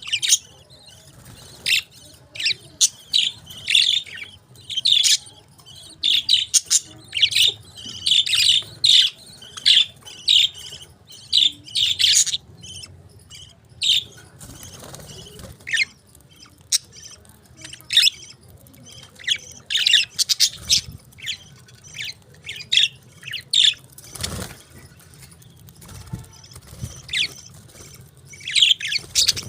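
Pet parakeets chirping in many rapid, short, high calls, densest in the first half, with a brief lull about halfway before the calls pick up again.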